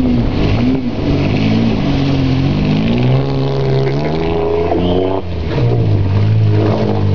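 Pickup truck engine revving hard under load as the truck pushes through a deep mud hole. The pitch swings up and down, climbs over a couple of seconds, drops sharply about five seconds in, then holds a lower steady note.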